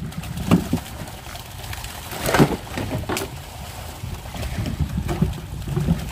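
Knocks and plastic rustling as white plastic sacks are handled in a wooden boat, over a steady low rumble. The loudest knock and rustle comes about two and a half seconds in, with lighter ones before and after.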